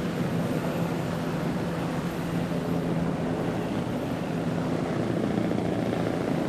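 Helicopter running steadily overhead: a constant engine and rotor drone.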